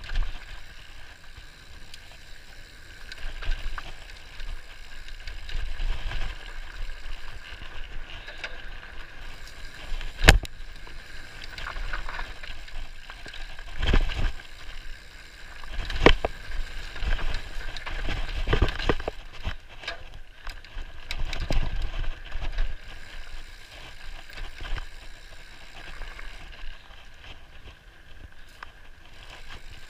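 Salsa Borealis fat bike riding down a dirt singletrack, heard from a camera mounted on the rider: continuous tyre and trail rumble with wind noise, and rattles and knocks from the bike over bumps, the sharpest about ten seconds in.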